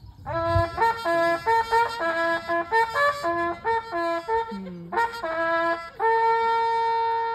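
Trumpet playing an improvised tune: a quick run of short notes, a brief break about four and a half seconds in, then more notes ending on one long held note.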